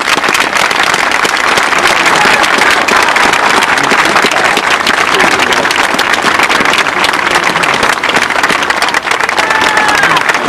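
A large crowd applauding steadily, dense clapping with a few high calls or whistles near the end.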